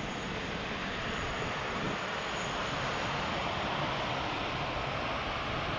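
Airbus A380 prototype's four jet engines running at taxi power: a steady rush of jet noise, with a thin high whine that fades out about halfway through.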